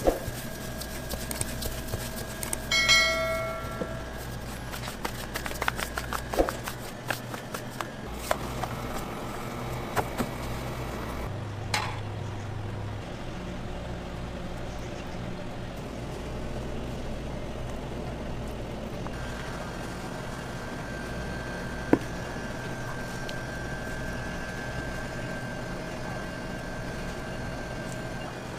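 Food-preparation sounds in a working kitchen: a steady background hum with scattered clicks and taps from handling dough and utensils, and a brief ringing clink about three seconds in.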